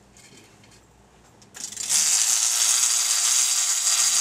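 Conventional trolling reel buzzing steadily as line is pulled off the spool against its drag and clicker, starting about a second and a half in.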